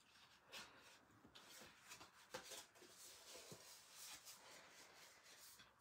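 Faint rustling and light crinkling of designer paper as it is folded by hand along scored lines, with a few soft clicks.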